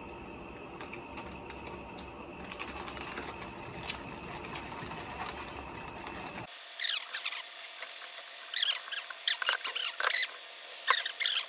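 Plastic MRE drink pouches being shaken to mix chocolate protein powder with water: steady rustling and sloshing, then about halfway through many sharp, high squeaks from the crinkling plastic.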